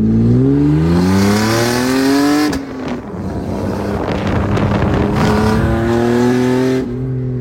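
BMW Z3 2.8i's inline-six, with its exhaust line cut, revving hard under acceleration. The pitch climbs for about two and a half seconds, dips briefly at a gear change, then climbs again until near the end, when the engine eases off.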